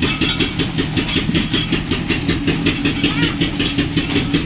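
Mustard-oil expeller machine driven by a single-cylinder diesel ('Peter') engine, chugging steadily at about eight beats a second.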